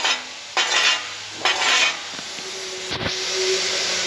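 Two short scraping strokes of a hand tool along a fresh steel weld bead, clearing slag off it, followed from about halfway by a steady hiss with a single thud near three seconds in.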